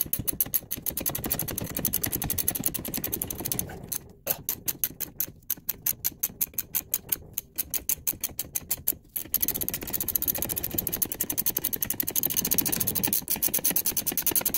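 Ratcheting wrench on a coil-spring compressor's nut, clicking rapidly and evenly as the compressor is unwound to release the rear coil spring. The clicking breaks off briefly about four seconds and nine seconds in.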